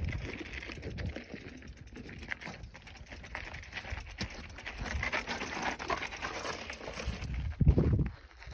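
A hiker's footsteps crunching on a rocky, gravelly trail, an uneven run of scuffing steps, with a louder low thump near the end.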